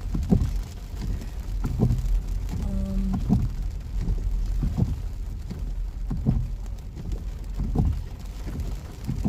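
Windshield wipers sweeping a wet windshield in a steady rhythm, one stroke about every second and a half, over rain on the car and a low steady car rumble, heard from inside the car.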